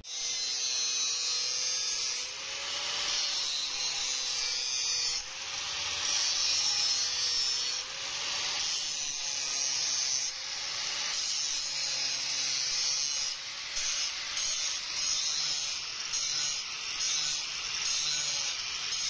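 Angle grinder grinding a spring-steel kukri blade made from a leaf spring: a steady grinding noise over a motor whine that rises and falls in pitch, with a few brief dips in loudness.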